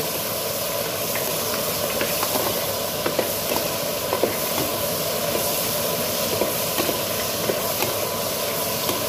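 Pork bones sizzling in oil in a steel wok, stirred with a metal ladle that scrapes and clinks against the pan now and then. The bones are being seared until their outer layer crisps, before water goes in.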